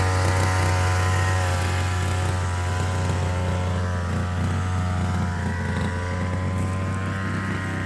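A small engine running steadily at an even pitch, slowly growing fainter.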